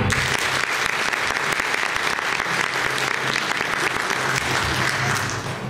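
Audience applause, breaking out at once and tapering off near the end.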